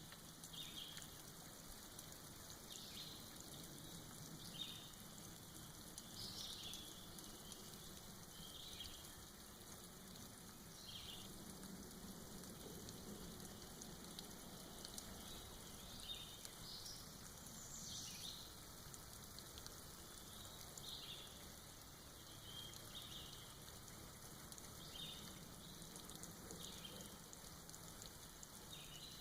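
Soft rain falling and dripping off moss in a forest, a faint steady patter. A bird calls over it with short high notes every second or two.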